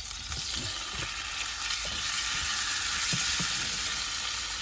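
Chopped chicken pieces sizzling and frying in hot oil in a pan, a steady crackling hiss that starts as the chicken goes in.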